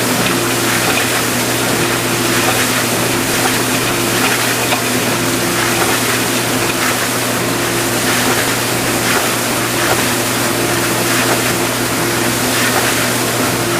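Vintage KitchenAid Supurba KDS-18 dishwasher running a wash cycle: a steady motor and pump hum under the hiss of water spraying inside the tub.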